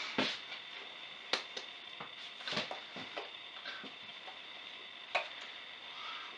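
Hands clapping and slapping against each other and the body while signing, with sleeve rustle: a few irregular soft taps and two sharper claps, over a faint steady high whine.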